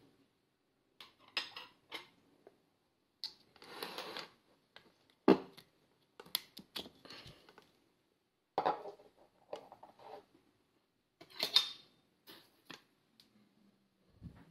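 Intermittent clinks and knocks of metal cookware and utensils, with brief scrapes between them and one sharp knock about five seconds in.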